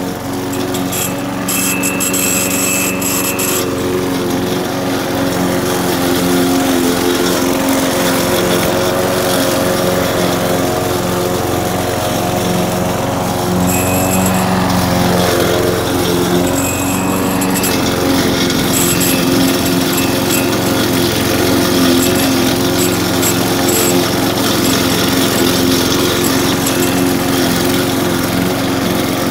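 Brute walk-behind lawnmower's small single-cylinder engine running steadily while cutting tall grass. About halfway through, the engine note dips briefly and then recovers.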